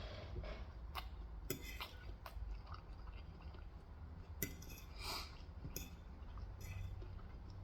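Quiet close-up eating: chewing on Korean fried chicken, with scattered short crisp crunches and clicks.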